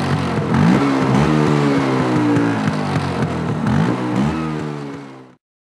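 A motor vehicle's engine running and revving, its pitch rising and falling again and again, cut off sharply near the end.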